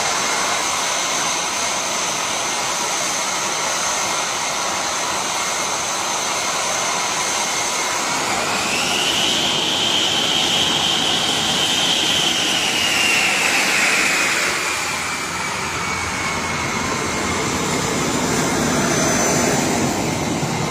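Air-raid warning siren wailing over a continuous rushing noise: its tone rises in pitch about eight seconds in, holds for a few seconds, then slowly falls back. This rising-and-falling wail signals an air strike or similar emergency.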